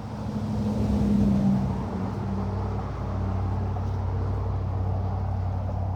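Constant hissing chorus of thousands of periodical cicadas, a sound like running water. Under it is a steady low engine hum, strongest in the first two seconds.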